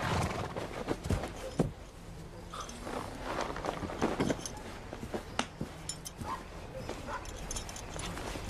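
Horses walking, their hooves knocking irregularly, with a few faint short animal calls in the background.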